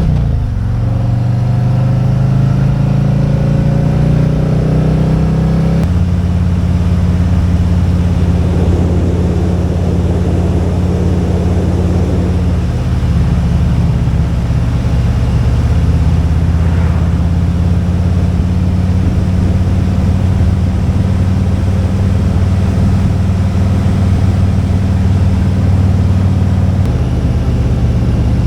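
Motorcycle engine running under way. Its pitch drops in the first second, then holds fairly steady, stepping to new levels a few times as the revs change.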